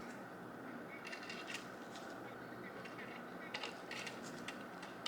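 Faint, scattered light clicks and taps, about half a dozen, over a steady low hiss.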